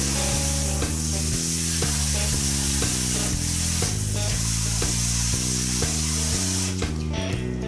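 Background music with a melody and bass line, overlaid by a loud steady hiss that cuts off abruptly near the end.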